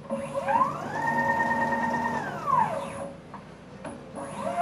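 DIY CNC router's gantry jogging on its stepper motors: a whine that rises in pitch as the motors speed up, holds steady for about a second, then falls as they slow to a stop. A second, shorter move begins near the end.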